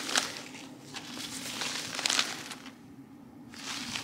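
A stack of bullet-torn copy paper being leafed through and pulled apart by hand, rustling and crinkling in bursts: at the start and about two seconds in, with a short lull before more rustling near the end.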